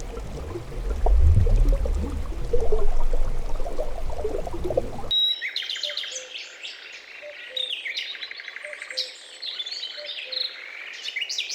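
A low rumbling noise, then about five seconds in a sudden cut to several songbirds chirping and trilling together, with a short lower note repeating under them.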